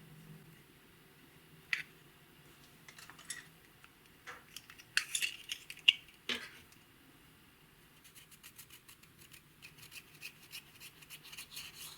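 Clear slime being mixed and pressed, giving scattered sticky clicks and crackles, then a quickening run of small clicking pops near the end.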